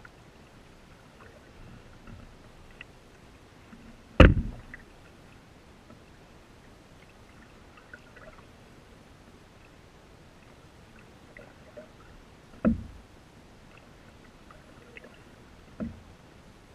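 Canoe being paddled on calm water: three knocks of the paddle against the hull, the loudest about four seconds in, then two more later, each with a short deep ring-out. Between them are faint water sounds and small ticks.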